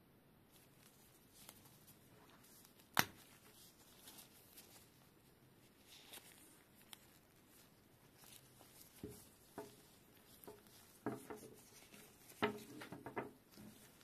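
Faint handling noise from nitrile-gloved hands working a white USB-A to USB-C cable: rubbing of gloves and cable, with one sharp click about three seconds in and a cluster of small knocks and rubs near the end.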